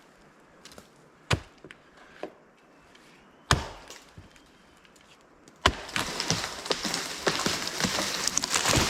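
Axe blows biting into a standing tree trunk, a few sharp chops seconds apart. About two-thirds of the way through a loud crack comes as the trunk gives way, followed by several seconds of crashing and crackling branches as the tree comes down.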